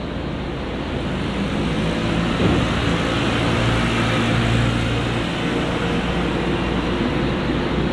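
Tokyo Metro Tozai Line 05 series electric train pulling out of the station, its motors giving a low hum that rises gently in pitch as it picks up speed.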